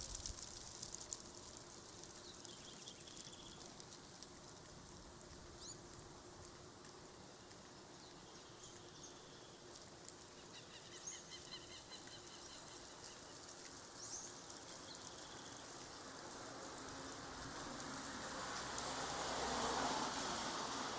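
Outdoor ambience with birds calling: scattered short chirps and a quick trill about halfway through. A rushing noise swells up near the end.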